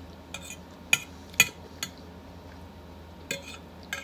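A fork clinking and scraping against a plate while picking up salad: about six short, sharp taps, the loudest about a second and a half in.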